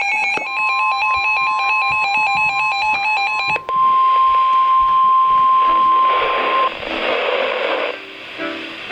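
NOAA Weather Radio warning alarm: a steady single high tone that cuts off about six and a half seconds in. For the first three and a half seconds a second alarm of rapidly alternating electronic beeps sounds over it, and radio static hiss follows the tone.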